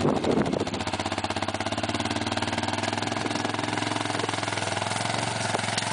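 ATV engine running steadily with an even, rapid exhaust pulse.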